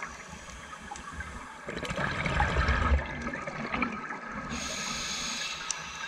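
Underwater breathing through a scuba regulator: a gurgling rush of exhaled bubbles about two seconds in, then a hiss of air near the end.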